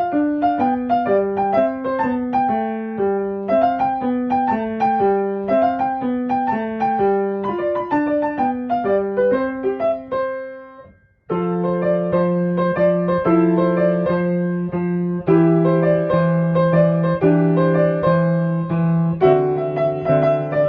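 Background piano music: a quick run of single notes, which fades out about ten seconds in and gives way, after a short gap, to a new passage of held chords with notes over them.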